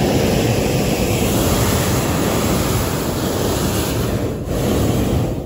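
Hot air balloon's propane burner firing overhead: a loud, steady blast that dips briefly twice near the end.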